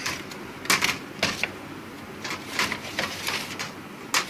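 A series of sharp, irregular clicks and taps, about seven in four seconds, like small hard objects being handled.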